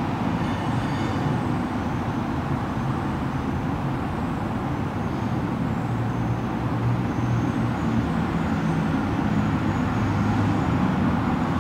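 Steady low rumble of road traffic, rising and falling slightly as vehicles pass.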